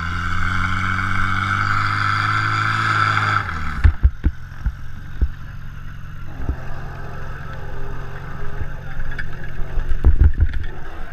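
Portable fire pump's engine running fast, then throttled back to a low idle about three and a half seconds in. Scattered knocks and clatter follow, a cluster of them near the end.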